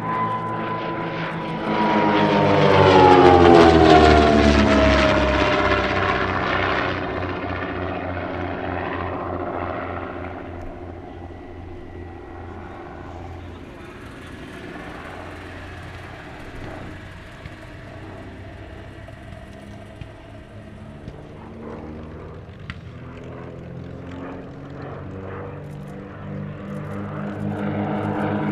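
de Havilland DH.88 Comet's twin Gipsy Six piston engines and propellers droning as the racer flies past. The pitch drops as it passes, about three seconds in, where it is loudest. The drone then fades, and grows louder again near the end as the aircraft comes round.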